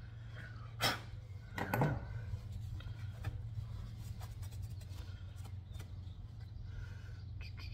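Handling noise at a bench vise: two sharp clicks about one and two seconds in as the tap and its wrench are handled and set down, then a paper towel rubbing over the freshly tapped aluminium block, with small scattered ticks. A steady low hum runs underneath.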